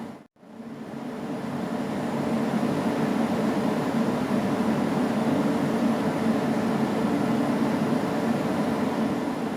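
A steady mechanical hum with an even rushing noise underneath. It comes back in after a brief cut-out right at the start and eases off slightly near the end.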